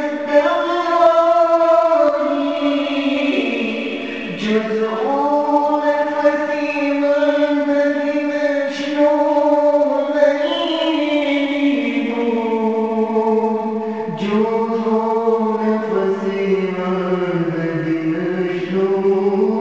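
Devotional chanting by a group of voices, a slow melody of long held notes that slide to a new pitch every few seconds.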